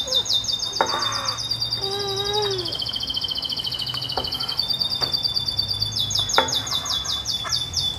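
A songbird singing a long, high, fast trill of rapidly repeated notes, shifting pitch a few times, with only brief pauses.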